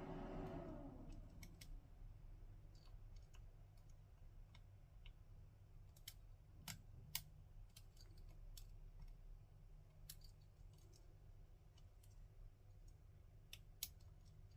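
Faint, irregular small clicks of a lock pick working the pins of an ASSA Desmo high-security lock cylinder during picking, over a steady low hum.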